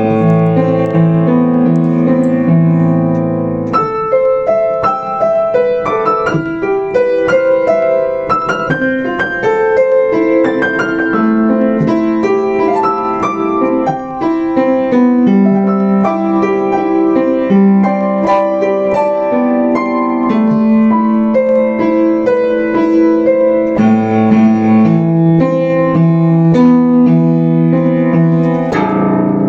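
Yamaha U5 upright piano played solo: a melody over held low chords, moving into busy runs of notes and back to held chords about 24 seconds in.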